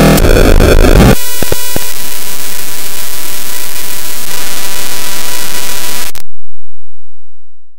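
Very loud, harsh static and distorted noise with a steady beep-like tone running through it and a few clicks, cutting off abruptly about six seconds in: a broadcast signal breaking up and going dead.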